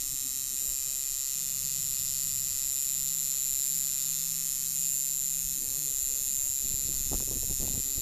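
Coil tattoo machine buzzing steadily as it lines a tattoo outline into skin.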